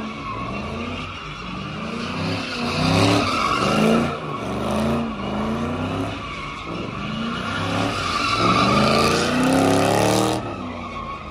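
A Chevrolet Camaro doing donuts. The engine revs up and falls back about once a second over the steady screech of spinning tyres. The screech stops near the end.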